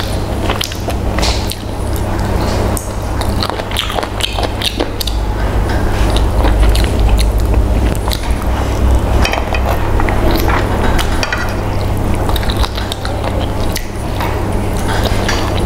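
Close-miked eating: chewing, lip smacking and wet squishing as pieces of fried chicken and rice are picked apart by hand and eaten, a dense irregular run of small clicks and smacks, with a steady low hum underneath.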